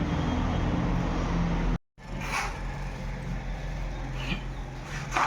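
Electric water pump motor running with a steady hum, cut off abruptly about two seconds in. After that a quieter hum continues, with a few short scrapes and knocks.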